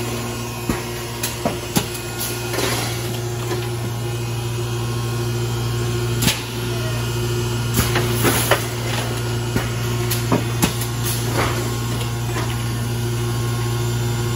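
Steady low hum of running factory machinery, with scattered sharp clicks and knocks.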